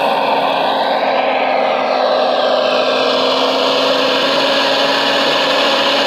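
Radio-controlled Liebherr R 970 model excavator working, with a steady mechanical whir from its drive that rises and falls in pitch about one to two seconds in as the boom lifts a bucket of mud.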